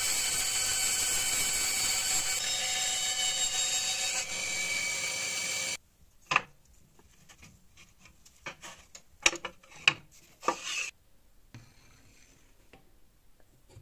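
Bandsaw running and cutting through a block of black wood for handle stock: a steady whine over the hiss of the blade. It stops abruptly about six seconds in. A series of sharp knocks and clatters follows as the wooden pieces are handled, then it goes quiet.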